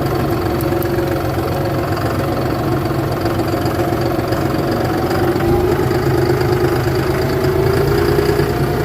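Farm tractor engine running steadily, its speed and pitch rising a little about halfway through.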